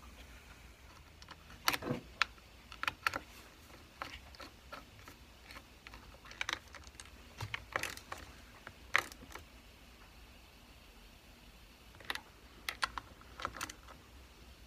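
Irregular small metallic clicks and taps of a wrench fitting and turning the carburetor mounting nuts on a Stihl MS390 chainsaw, quieter for a couple of seconds past the middle.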